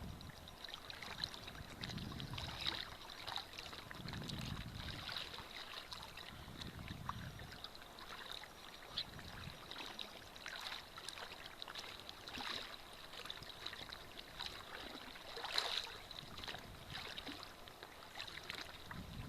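Small waves washing in on a beach, with rolling surges about every two seconds early on, and a continual light crackling and clicking of water through stones. A louder cluster of crackles comes near the end.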